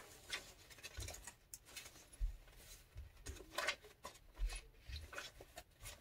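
Pages of a handmade junk journal being turned and handled: faint, scattered paper rustles with a few soft taps.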